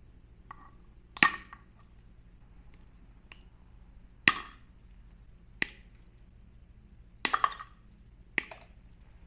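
Sharp snipping snaps of a cutting tool clipping excess cured UV resin off a resin keycap, about six cuts at irregular intervals, two close together near the end.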